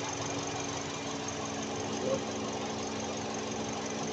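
2023 Toyota Camry engine idling steadily.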